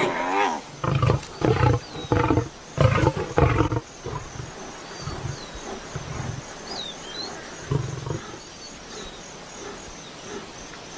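Lions snarling and roaring in a series of short, loud bursts through the first four seconds, with one more burst near eight seconds. Between and after them come faint high bird chirps and a thin, steady trill.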